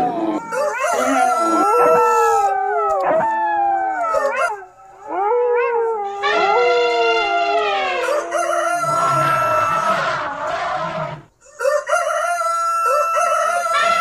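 A jumble of overlapping animal-call sound effects: howls and cries that glide up and down in pitch, some held on a steady note, dropping out briefly twice.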